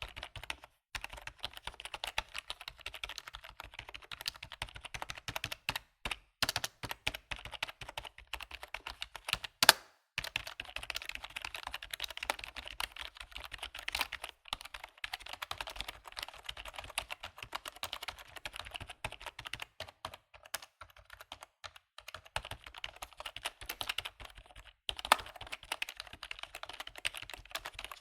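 Computer keyboard typing: rapid, continuous key clicks with a few short pauses and an occasional louder keystroke.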